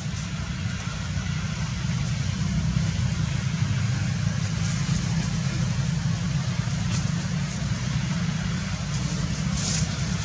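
Steady low rumble under a constant hiss, with a brief faint high sound near the end.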